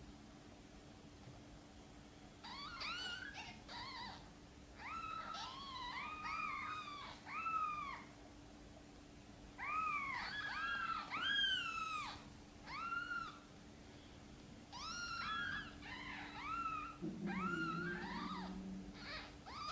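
Newborn kittens mewing: a run of short, high-pitched cries that rise and fall, often several at once, starting about two seconds in and coming in clusters. These are the cries of tiny kittens lying outside the nest.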